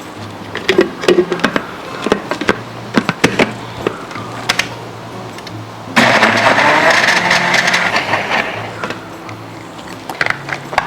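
Countertop blender switching on suddenly about six seconds in and blending frozen acai cubes with orange juice and mint for about three seconds, then dying away. Before it, a run of light clicks and knocks. Background music plays throughout.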